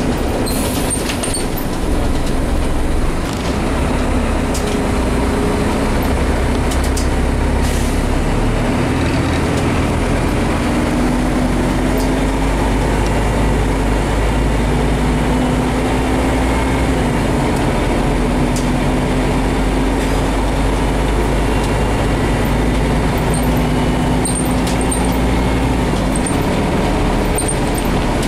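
Scania CN270UB city bus heard from inside the passenger cabin: the engine and drivetrain running under way, with a steady low rumble and an engine note that climbs in pitch several times as the bus accelerates. A few brief clicks come near the start.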